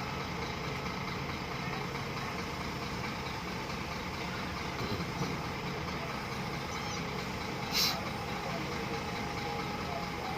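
Heavy diesel engine idling steadily, with a short hiss of air about eight seconds in.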